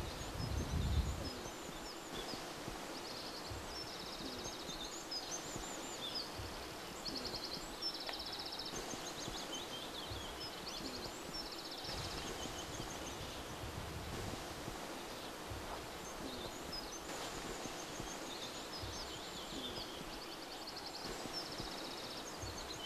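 Outdoor ambience of birds chirping and giving short rapid trills again and again, over a faint steady background hiss, with a brief low rumble about a second in.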